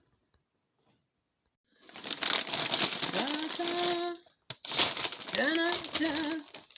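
Plastic bag of tortilla chips crinkling as it is opened and handled, in two bouts of crackling after a quiet start.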